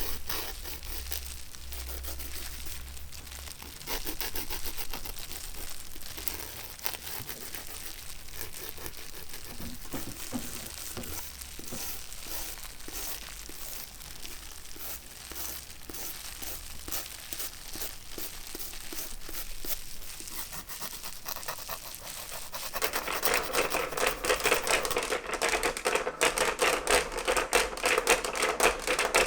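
Paper or plastic being crinkled and crumpled, a dense run of small crackles. Near the end it gives way to a louder, rapid, regular clacking.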